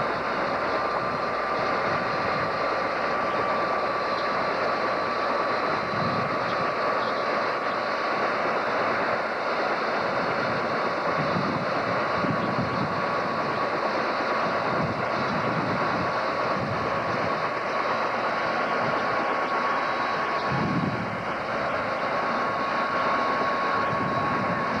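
Bell 206 JetRanger helicopter running on the ground with its main rotor turning. The sound is a steady turbine whine over the rush of the engine and rotor.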